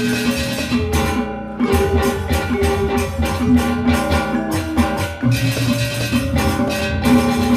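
Balinese gong kebyar gamelan playing an instrumental piece. Bronze gangsa metallophones strike fast, dense figures over ringing tones, with kendang barrel drums underneath.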